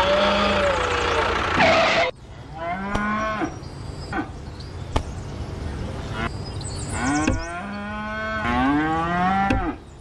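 Cows mooing: several long, drawn-out calls that rise and fall in pitch. Before them, a running engine cuts off suddenly about two seconds in.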